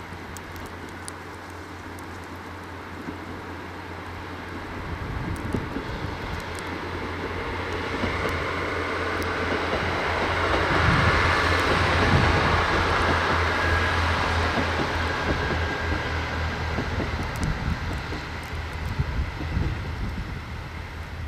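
Diesel train passing: its sound builds over several seconds, is loudest about halfway through with a steady low engine drone under the rolling noise, then fades away.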